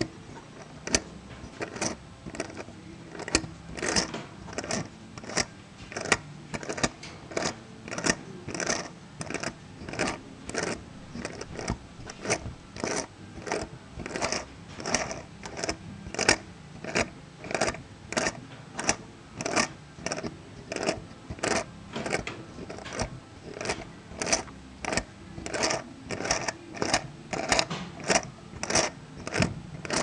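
Hand-cranked miniature brass Case baler model working through its strokes: small metal clicks from its gears, plunger and feeder arm, about one and a half a second in a steady rhythm.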